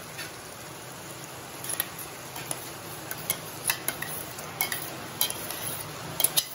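Onions and tomatoes frying in a pan with a steady, low sizzle as ground paste is added. From about two seconds in, a series of short, sharp clicks and taps of utensils against the pan.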